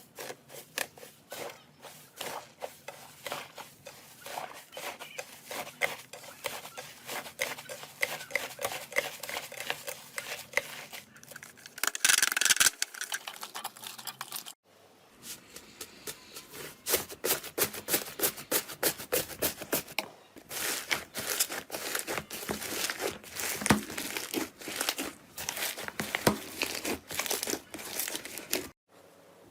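Slime being squished, pressed and stretched by hand, giving rapid irregular sticky crackles and pops. The sound changes abruptly at several cuts between clips.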